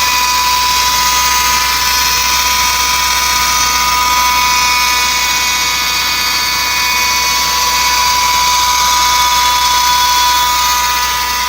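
1990 Acura Integra 1.8 engine running with a loud, steady high-pitched whine. The noise comes from the worn air-conditioning belt tensioner pulley, whose bearing has play.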